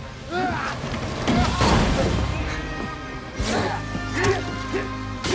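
Film action soundtrack: a voice cries out near the start, then a loud crash about a second and a half in, followed by sharp thuds and impacts. A dramatic music score with sustained tones plays underneath.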